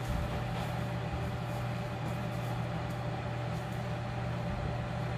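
Steady low machine hum of barn equipment, with a faint steady higher tone over it.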